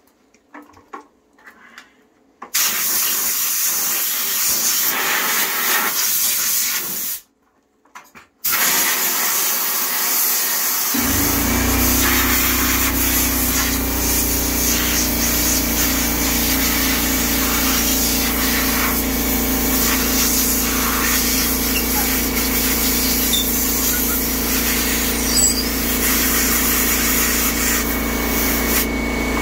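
Compressed air hissing from an air-hose nozzle onto a hot MagnaCut blade clamped between aluminum quench plates, cooling it fast during the plate quench. The air comes in two long blasts with a short break about 7 seconds in. About 11 seconds in, an air compressor starts and runs with a steady hum under the hiss.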